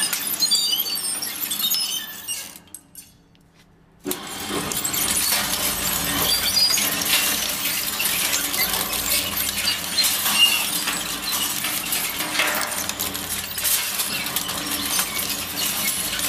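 A crushing machine breaking something brittle: dense crackling, snapping and clinking. The sound fades to near silence for about a second and a half, about three seconds in, then the crunching starts again abruptly.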